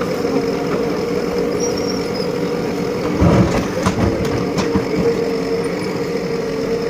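JCB 3DX backhoe loader's diesel engine running steadily, with a heavy crash about three seconds in followed by several sharp knocks.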